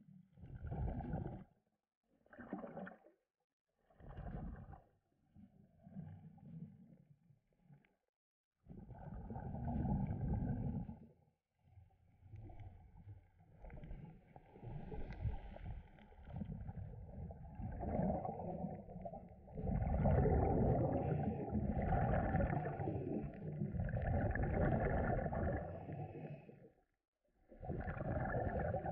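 Scuba regulator exhaust bubbles gurgling underwater, heard through the camera's waterproof housing: separate bursts of a second or two with quiet gaps at first, then near-continuous bubbling through the second half.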